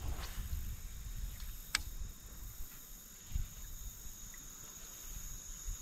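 A steady high-pitched insect drone over low rumbling noise, with a sharp click just under two seconds in.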